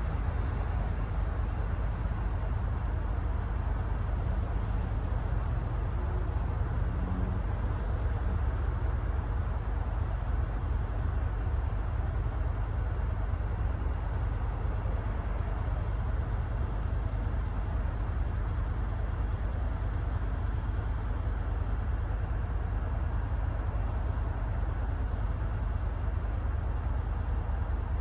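Steady low rumble of a diesel engine idling at a standstill.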